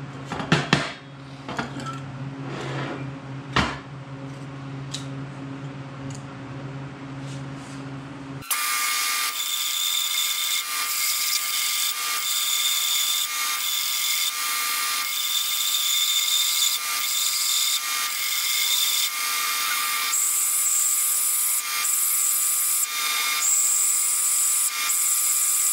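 A few sharp clinks of steel parts being handled, then, about eight seconds in, a belt sander starts grinding a weld-relief bevel into the edge of a steel piece. It makes a steady, high grinding hiss that dips briefly now and then as the piece is worked against the belt.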